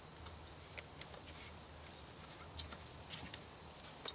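Faint, scattered clicks and light rattles from handling a semi-automatic shotgun seated in a shooting rest, the clearest click about two and a half seconds in.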